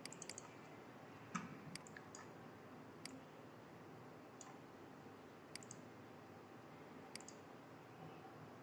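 Computer mouse clicking: about a dozen short, sharp clicks at irregular intervals, some in quick pairs, over faint room hiss.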